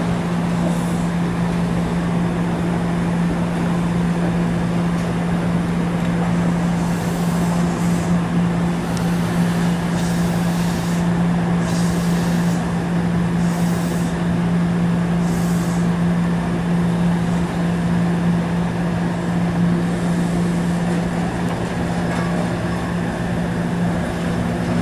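A Kawasaki light-rail streetcar standing at a tunnel portal, giving off a steady low electric hum. Several short hisses come in the middle stretch.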